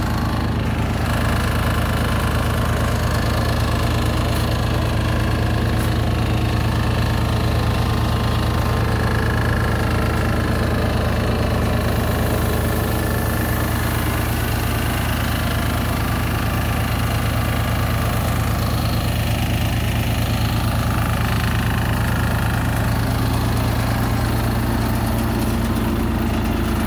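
Small Yanmar tracked rice harvester-thresher running steadily at a constant engine speed while rice sheaves are fed through it for threshing. A brighter hiss joins in about halfway through.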